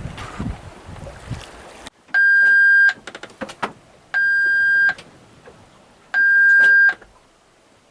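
Wind rushing on the microphone, then, after an abrupt cut about two seconds in, an electronic alarm beeping: three long steady beeps of one pitch, each nearly a second long, about every two seconds.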